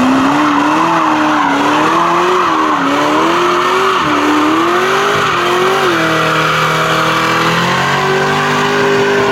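V8 muscle car engine held near the top of its revs, its pitch wavering up and down, with a steady hiss of tyres spinning as in a burnout. The revs level off at a steady high note near the end.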